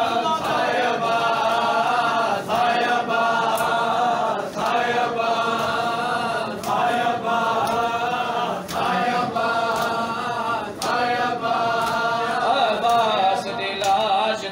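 A crowd of men chanting a Shia noha refrain in unison, in phrases of about two seconds, each phrase marked by a slap of hands beating on chests (matam).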